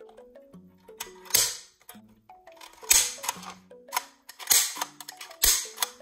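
Plastic toy foam-disc launcher being triggered several times, each pull giving a sharp plastic clack and rattle of its mechanism, with no disc flying out: a foam disc is jammed inside. Light background music plays underneath.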